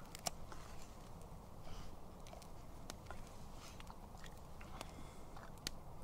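Spoon scraping scrambled egg out of a metal pan into a wooden kuksa: faint, scattered clicks and small scrapes.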